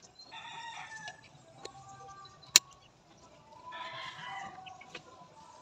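A chicken calling twice, each call lasting about a second, one near the start and one about four seconds in. Between them comes a single sharp click, the loudest sound.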